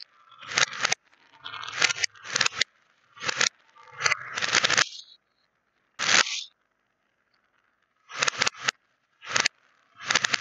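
Small beads rattling and spilling against plastic stacking cups, played in reverse. About ten short bursts, each swelling up and cutting off abruptly, with silent gaps between them.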